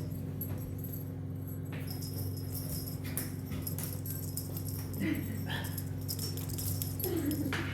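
Steady background hum with faint jingling, like a small bell. A short high-pitched call sounds about five seconds in and again near the end.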